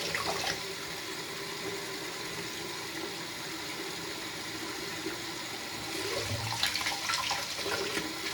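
Water tap running steadily, left on until the water comes out hot. A few light knocks near the end.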